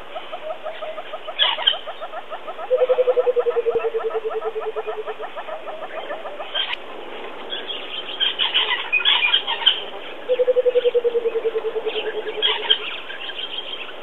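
Burchell's coucal giving its bubbling call: a long, rapid run of hollow notes that slides slightly down in pitch, heard twice, each run about two and a half seconds long, with a fainter, higher run beneath the first. Other small birds chirp in between.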